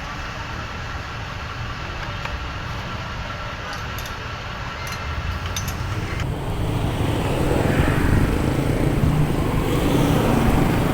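Road traffic noise: a steady rumble of passing vehicles, louder from about six seconds in.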